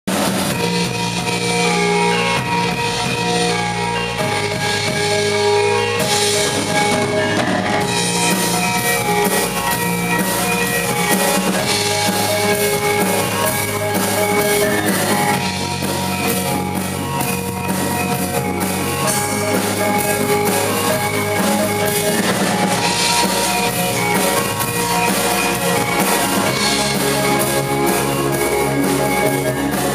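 Live music from a gamelan of bronze kettle gongs played together with a drum kit and electric bass. The gongs ring many sustained pitched notes over a steady drum beat.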